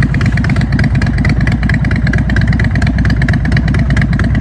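A custom chopper motorcycle's V-twin engine idling steadily and loudly, with a fast, even beat of exhaust pulses.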